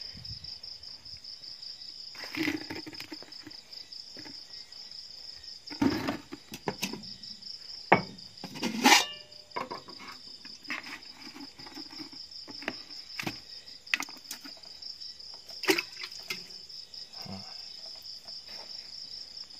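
Steady, high-pitched insect chorus with a fast pulsing trill, with scattered short knocks and clatters from handling plastic buckets of caught fish, the loudest several seconds into the middle.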